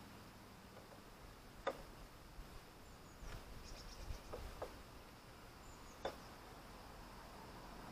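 Faint metal clicks and small knocks from a motorcycle side stand being handled and lined up against its frame bracket on a Zontes Tiger 125cc. The clearest click comes under two seconds in, a few lighter ones follow in the middle, and one more comes near the end.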